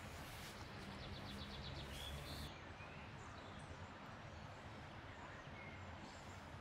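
Faint outdoor forest ambience: a steady background hiss, with a short, rapid bird trill about a second in and a few faint bird chirps later.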